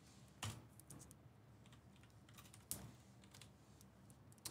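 Near silence with a few faint, scattered clicks and taps, the clearest about half a second in and again near three seconds in.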